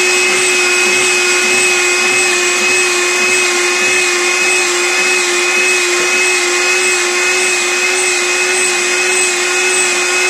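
Electric meat grinder's motor running steadily with an even whine while minced meat is pushed through it, grinding the mince a second time so it is fine enough for kofta.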